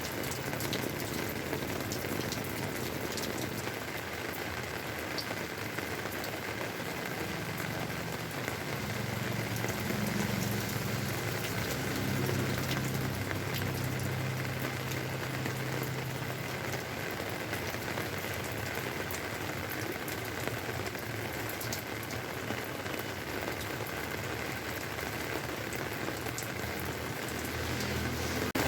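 Heavy monsoon rain falling steadily, a dense even hiss of drops, with a faint low hum for several seconds midway.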